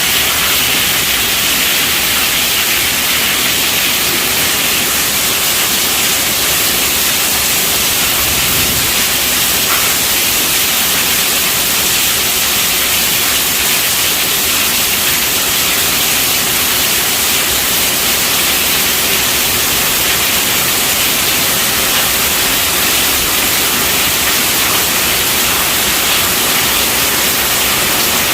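Heavy rain falling on a tent roof: a dense, steady hiss.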